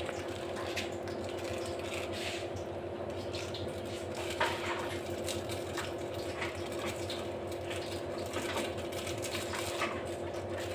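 Plastic seasoning sachets crinkling and rustling as they are torn and squeezed out over a pot of noodles, with scattered light clicks, over a steady low hum.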